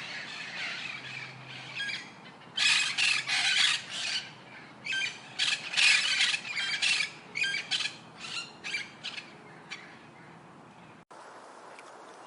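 Birds giving harsh, raspy squawking calls in quick clusters of short notes. Near the end the sound cuts suddenly to a steady hiss.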